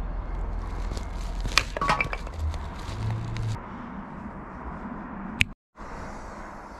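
Firewood being split into kindling on a log chopping block: two sharp cracks close together, about one and a half to two seconds in, with a light clink. A single sharp click follows a little after five seconds in.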